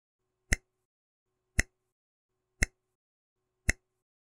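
Countdown timer sound effect: four sharp ticks, about one a second.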